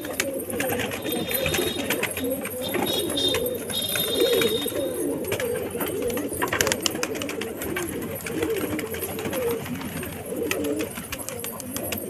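A flock of domestic pigeons cooing, many overlapping coos throughout, with scattered short clicks.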